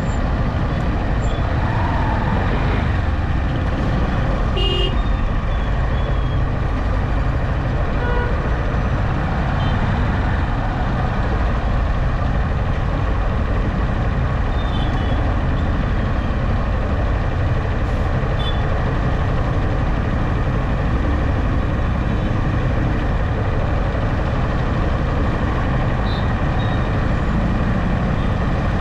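Steady road noise from a moving vehicle: a low engine hum with tyre and wind rumble, running evenly throughout. A few faint, short high tones stand out briefly, the clearest about five seconds in.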